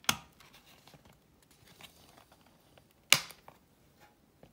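Handling of a clear plastic Blu-ray disc tray and discs: faint light ticks and rubbing, a small click just after the start, and one sharp plastic snap about three seconds in from a disc at the tray's centre hub.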